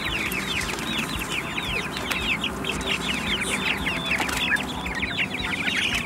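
A group of young Cornish Cross broiler chicks peeping without pause, many quick falling peeps overlapping one another.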